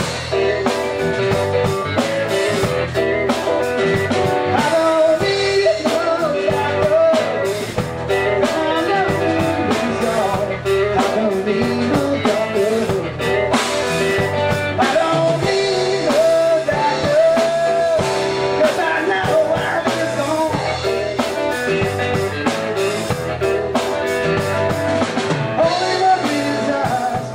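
Small rock band playing a song: electric guitar, drum kit and Roland Fantom X7 keyboard, with a man singing.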